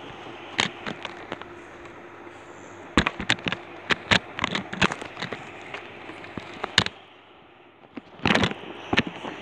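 Irregular sharp clicks and knocks of objects being handled right next to the microphone. They come in a dense run in the middle and end in a louder cluster near the end.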